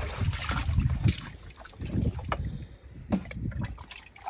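Water splashing and sloshing as a metal ladle scoops through a shallow pool, loudest in about the first second, followed by a few scattered knocks.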